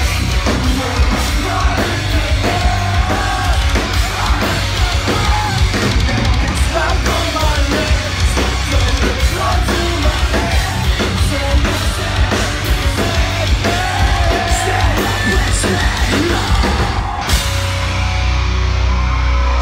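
Metalcore band playing live and loud, with fast pounding drums, heavy guitars and singing. Near the end the drumming stops and held chords ring on.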